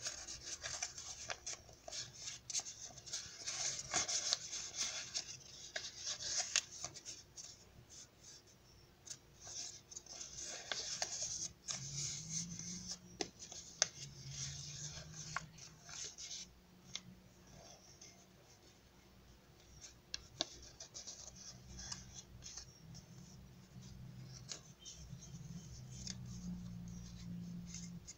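A sheet of origami paper rustling and crinkling as it is folded and creased by hand. The rustling comes in bursts with small sharp crackles, heaviest in the first half and fainter later.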